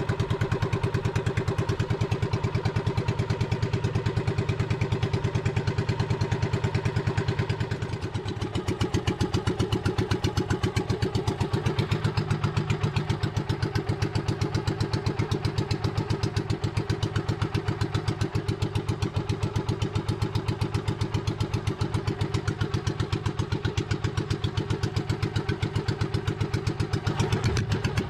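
Small engine of a motorized outrigger boat (bangka) running steadily with a rapid, even putter, with a brief dip and change in tone about eight seconds in.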